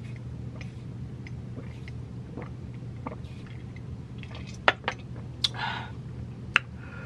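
Quiet sipping of iced juice through a straw, then a few sharp clicks and clinks of the ice-filled glass being set down on the table, with a short breathy puff of air as she cools a mouth burning from spicy food. A steady low hum lies underneath.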